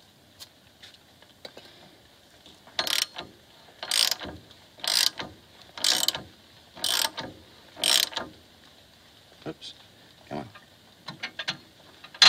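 Socket ratchet clicking in six bursts about a second apart as its handle is swung back and forth, turning the nut on a threaded rod that draws the hub into a new rear wheel bearing. A few lighter clicks follow near the end.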